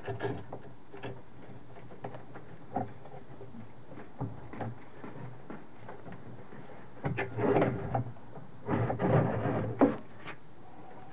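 Scattered knocks and scraping of metal as a British Seagull outboard motor, its seized piston just freed, is gripped and worked by hand. Two longer stretches of clattering come about seven and nine seconds in.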